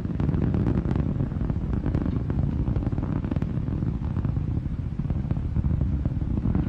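Titan IVB rocket climbing after liftoff: a steady, deep engine rumble with crackling running through it.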